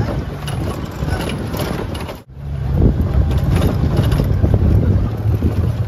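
Vehicle running along a gravel dirt road: engine rumble with road and wind noise. It cuts out abruptly about two seconds in, then returns as a louder, steady low rumble.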